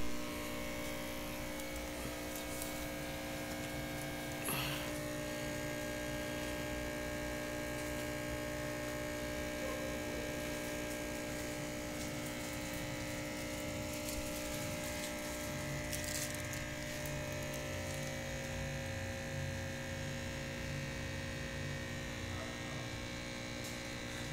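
Steady electric hum of running aquarium equipment, the air pump and filter, made of several steady tones. A brief sharp sound cuts in about four and a half seconds in.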